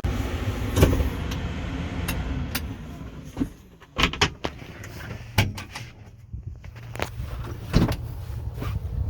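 Steady low engine drone of harvest machinery, with a scattering of sharp clicks and knocks at irregular intervals; the loudest knocks come about a second in and near the end.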